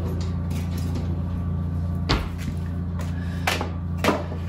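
Wooden kitchen drawer being rummaged through and shut, with three sharp knocks about two, three and a half and four seconds in, over a steady low hum.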